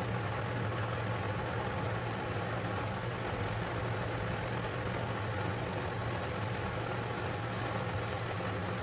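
A steady low hum with a hiss over it, unchanging throughout, like a running motor or appliance.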